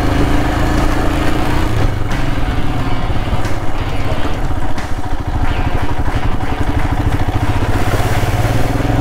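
Royal Enfield Himalayan's 411 cc single-cylinder engine running as the motorcycle is ridden over a rough dirt and mud track. The engine note is steady at first, turns uneven from about two seconds in, and evens out again near the end.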